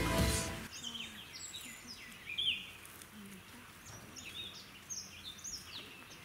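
Small birds chirping and whistling in many short, high, quick calls, some sliding down and some up, after background music fades out within the first second.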